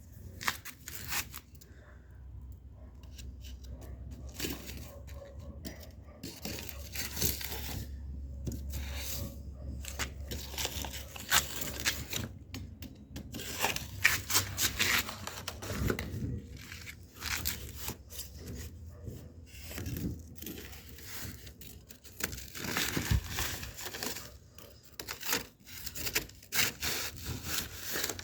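Paper being crumpled and rustled, with irregular crackles and rustles that come and go.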